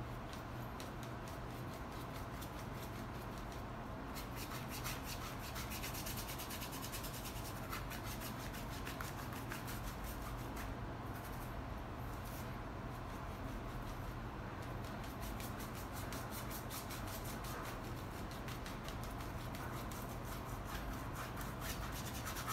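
Paintbrush worked back and forth over a canvas, spreading watered-down acrylic paint: a quick, continuous run of brush strokes, with a couple of short pauses.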